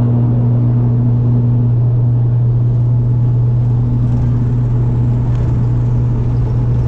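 ATR 72-500 twin turboprop airliner heard from inside the cabin: a loud, steady low propeller drone over a constant rush of engine and airflow noise.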